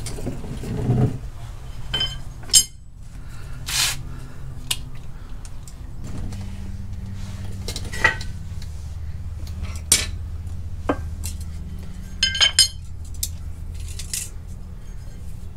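Metal tools clinking and clicking against clutch parts during measuring: a scattered handful of sharp clicks, with a short cluster of them about twelve seconds in and a brief hiss about four seconds in. A low steady hum comes in about six seconds in.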